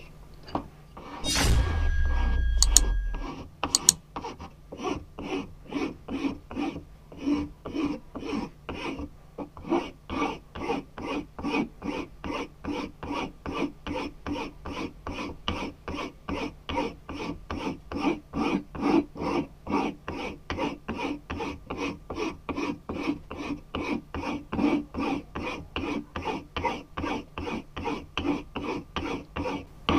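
Hand file rasping back and forth across the end of a new wooden hammer handle clamped in a bench vise, shaping it, at about three strokes a second. Just before the filing begins there is a loud clatter and knock with a short metallic ring.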